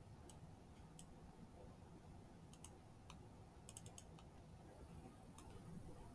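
Faint computer mouse clicks, about ten scattered ones including a quick run of four, over near-silent room tone.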